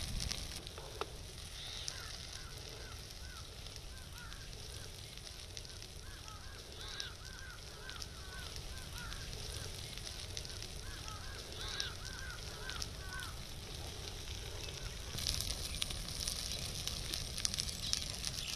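Forest fire crackling over a steady hiss, with sharper snaps coming thicker near the end. A bird calls in three runs of quick, repeated rising-and-falling notes.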